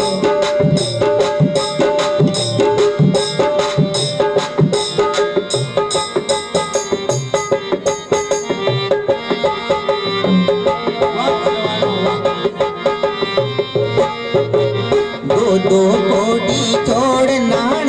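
Chang, the large Rajasthani hand-beaten frame drum, played in a steady dance rhythm, with a held melodic tone running underneath.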